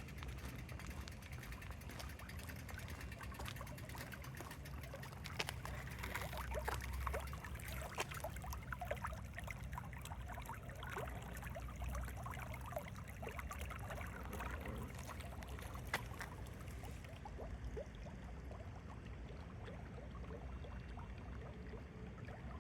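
Spring-fed brook trickling and burbling, with many small irregular splashes over a steady low rumble.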